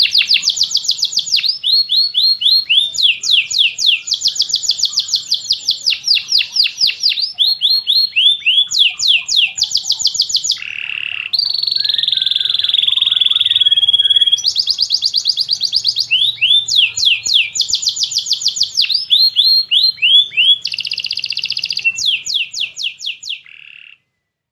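Domestic canary singing a continuous song of fast trills, each a rapid run of repeated down-slurred notes, switching to a new trill every second or two. About halfway through comes a few seconds of a buzzier, more even rolling phrase. The song then resumes, fades and stops just before the end.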